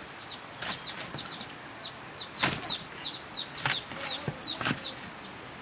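Small birds chirping over and over, each chirp a short, high, downward-sliding note. A few sharp cracks cut in, the loudest about two and a half seconds in.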